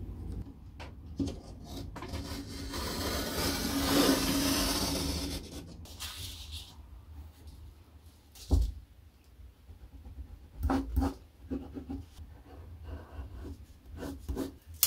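Drawing and paper handling on a wooden work table: a scratchy rub that swells and fades over about three seconds, then a single sharp thump about halfway through, followed by a few light knocks and rustles.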